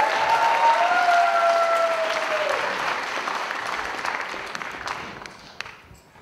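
Audience applauding, with a few drawn-out whooping cheers over it in the first two seconds or so; the applause fades away in the last second.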